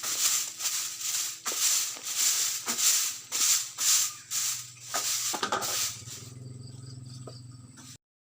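Stiff brush or broom strokes swishing rhythmically, about two a second, then a quieter steady hum for the last two seconds before the sound cuts off abruptly.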